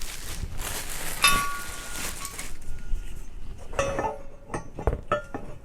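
Metal parts of a paddock stand being handled out of their packaging: rustling at first, then a series of sharp metallic clinks, some ringing briefly.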